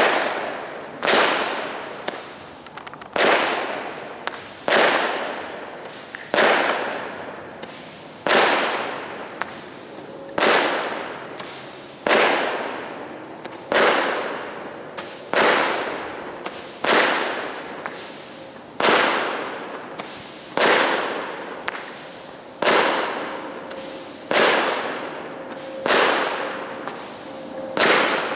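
Warp Speed consumer firework firing repeated shots, about sixteen of them, one every one and a half to two seconds. Each is a sharp report that fades away over about a second.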